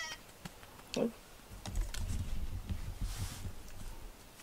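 A cat moving and rubbing right beside the microphone: light clicks and a low rubbing rumble for a couple of seconds in the middle, after a brief high squeak at the start.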